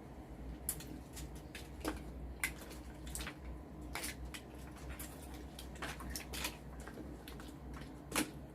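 Scattered soft clicks and smacks of eating at the table: mouth sounds and small knocks of utensils or shells, irregular, with one sharper click near the end.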